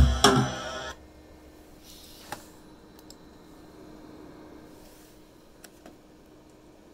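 Playback of a recorded drum-kit loop through studio monitors, with heavy kick and tom hits ringing, stops about a second in. After it, a computer mouse clicks a few times over a faint steady low hum.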